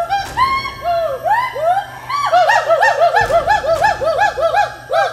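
Gibbons calling: a fast series of hooting notes, each rising and falling in pitch, that quicken about two seconds in, with a second, higher voice overlapping the first.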